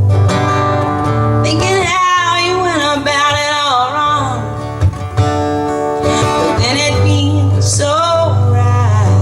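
Live acoustic song with strummed and picked acoustic guitars and a voice singing a wavering melody line in two phrases, one from about a second and a half in and the other from about six and a half seconds in.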